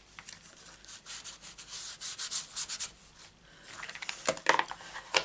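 Anti-static embossing buddy, a powder-filled fabric pouch, rubbed in quick repeated strokes over cardstock to stop embossing powder clinging where it isn't wanted before heat embossing. A few sharper clicks come near the end.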